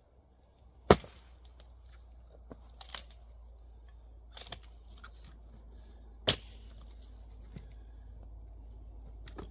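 A heavy splitting axe, a 4-plus-pound Dandenong Tassie, striking Douglas fir firewood: two hard sharp strikes about five seconds apart, with a few lighter knocks of wood between them.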